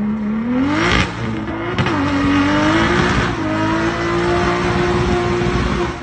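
4x4 SUV's engine revving hard with its wheels spinning in loose soil. The revs rise over the first second, dip briefly, then climb again and hold high and steady.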